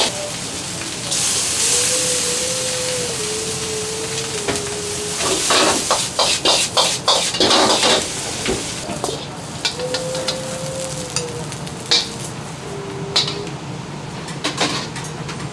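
Egg fried rice sizzling in a wok as it is stirred and tossed with a metal ladle. A quick run of ladle strikes against the wok comes about halfway through. The sizzle then fades, leaving a few single clinks.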